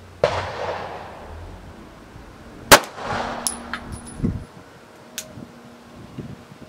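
Two 9mm pistol shots about two and a half seconds apart, the second louder, each trailing off in echo, with a few small clicks after.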